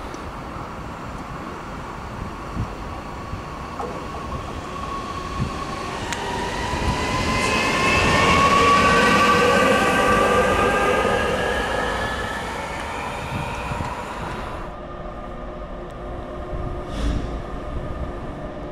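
Red DB electric locomotive passing through a station: its whine rises with several tones gliding in pitch, loudest about nine seconds in, then fading. After a cut about fifteen seconds in, a freight train hauled by a DB Cargo electric locomotive approaches, with a single thump near the end.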